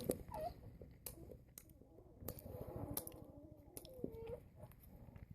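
Faint, scattered clicks and soft handling noises of a wrapped peanut butter cup candy being unwrapped and eaten, with a short murmur of voice about four seconds in.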